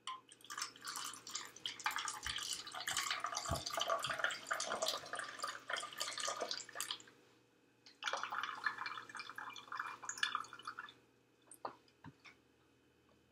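Hydrogen peroxide poured from a small glass cup into a plastic soda bottle, splashing and trickling down the narrow neck. The pour comes in two spells with a lull of about a second between them, followed by a few light clicks near the end.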